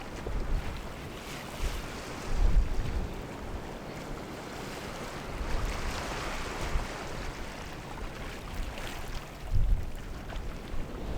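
Wind buffeting the microphone in low rumbling gusts, strongest about two and a half seconds in and near the end, over a steady rushing noise like surf.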